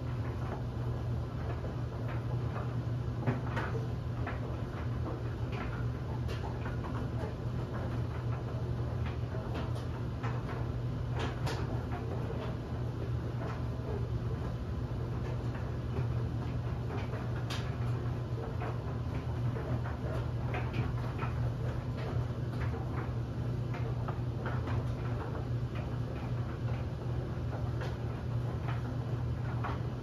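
LG DLE7300WE electric sensor dryer running with a load of bed linens tumbling in the drum: a steady low hum with irregular light ticks and taps as the laundry falls.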